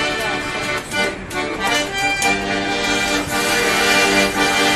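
Instrumental song introduction: sustained chords played over a steady low drone that comes in about two seconds in, with a few sharp clicks in the first two seconds.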